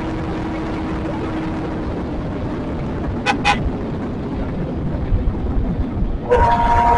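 Wind rush and the engine of a Kawasaki sport motorcycle cruising steadily at about 100 km/h in fifth gear. Two short horn toots come about halfway through. Near the end the sound turns brighter and a steady whine comes in.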